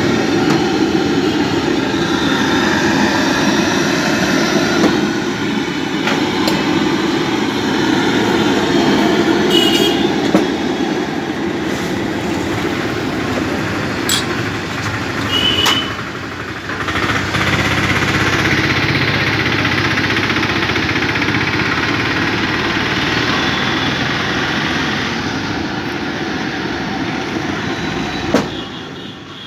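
Steady rumble of vehicle engines and traffic, with two short high tones about ten and sixteen seconds in and a few clicks.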